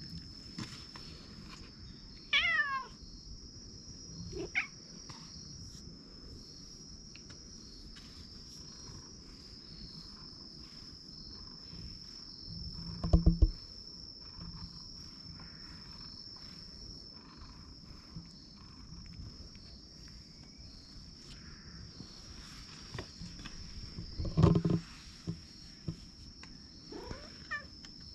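Cat giving a few short calls while being stroked, over a steady high-pitched insect drone.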